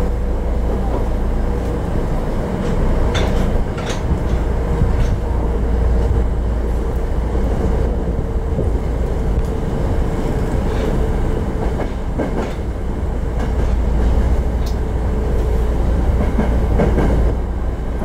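Tokyo Metro 02 series subway car with Toshiba IGBT-VVVF traction equipment running between stations, heard inside the car: a steady low rumble with a steady hum from the drive that fades out about two-thirds of the way through. Wheels click over rail joints a few times.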